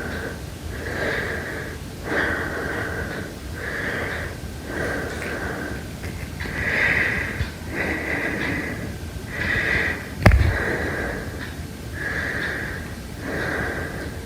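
Heavy, regular breathing at about one breath every second, each breath carrying a slight whistle. A single sharp knock about ten seconds in is the loudest sound.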